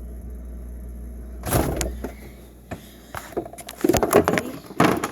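A steady low hum, then a loud scraping rush about a second and a half in, followed by a run of clicks and knocks from things being handled.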